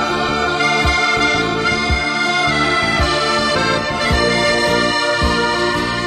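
Background music: held chords over a steady low beat about once a second.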